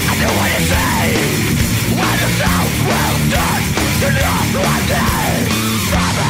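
Loud, dense heavy-metal-style music.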